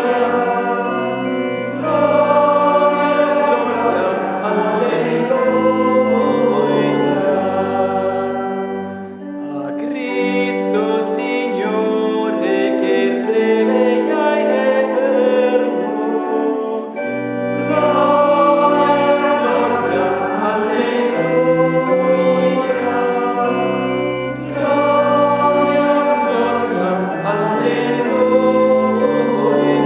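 Choir singing a hymn with organ accompaniment. Midway the deep bass notes drop out for several seconds, then return.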